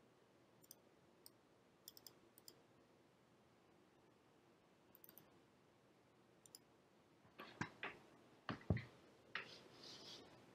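Computer mouse clicks against near silence: faint single and double clicks spread over the first seven seconds, then a cluster of louder clicks and a few dull knocks from about seven and a half seconds in.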